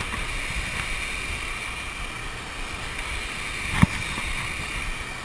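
Steady rush of a small waterfall, with wind rumbling on the microphone and one sharp click almost four seconds in.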